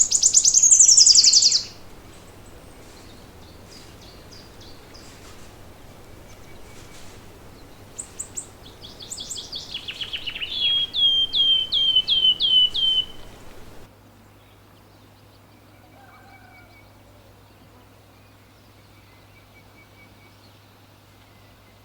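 Songbirds singing: a loud, rapid high trill at the start, then midway a song of about seven repeated notes that each slide downward. The sound then drops abruptly to faint bird calls over a quiet background.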